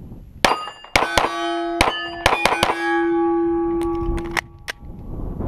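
A CZ 75 Compact L 9mm pistol fired at steel plate targets: a quick string of about eight shots, then two more after a short pause, each hit setting the steel plates ringing. One low ring hangs on for over a second between the strings.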